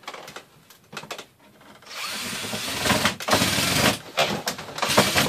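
Cordless drill driving screws into the wooden cedar tabletop to secure a loose board. A few knocks of handling come first, then the drill runs steadily for about two seconds from about two seconds in, followed by shorter bursts near the end.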